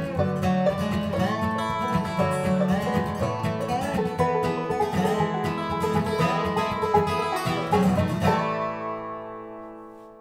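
Acoustic bluegrass trio of banjo, acoustic guitar and resonator guitar playing a busy picked instrumental tune. About eight seconds in they stop together on a final chord that rings on and fades away.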